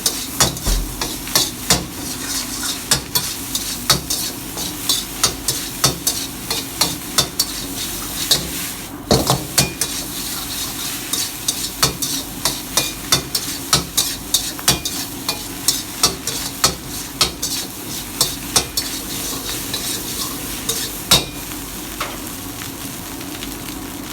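Chicken fried rice stir-frying in a hot pan: a steady sizzle with sharp metal clacks about twice a second as a metal utensil stirs and strikes the pan.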